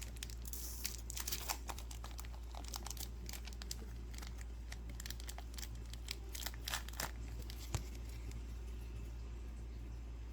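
Foil wrapper of a Pokémon TCG booster pack being torn open and crinkled by hand: a run of short crackles, busiest in the first seven seconds, then only an odd rustle.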